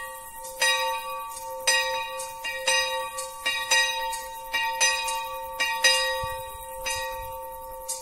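A single bell struck about once a second, with lighter strokes in between, its tone ringing on between strikes: the bell rung for the elevation at the consecration of the Mass.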